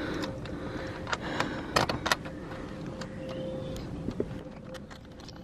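Small metal clicks and taps of bolts, nuts and bracket hardware being handled as nuts are fitted onto the bolts of a solar panel tilt bracket on a van's roof rail. The clicks come in a cluster over the first two seconds and then thin out, over a faint steady hum.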